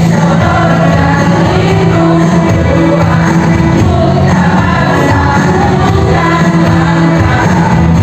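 A women's choir singing together, with long held notes.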